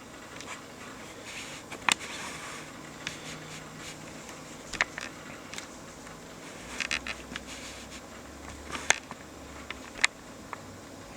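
Steady whirring hum of a booting 1995 Apple Performa 6200CD computer, with scattered short, sharp clicks and taps about every second or two.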